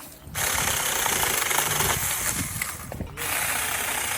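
Saker 4-inch cordless electric mini chainsaw switched on about a third of a second in and running with a steady whir and chain rattle. It stops briefly just after three seconds in, then starts again.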